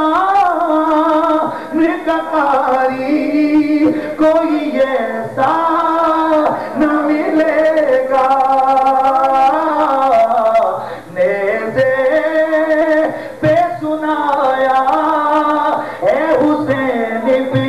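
A man's voice singing a slow religious recitation into a microphone, with long held, wavering notes and short pauses for breath.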